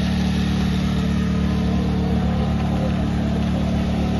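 An engine running steadily at idle, a low, even hum that does not change.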